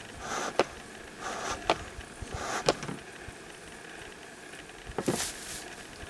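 Bee smoker bellows being pumped: three quick puffs of air about a second apart, each ending in a sharp click of the bellows, then a longer, louder puff about five seconds in.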